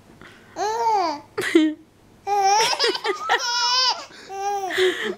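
Baby girl laughing in high-pitched squealing bursts, in three bouts with short pauses, the longest in the middle. She is laughing at a pacifier being pulled out of her mouth.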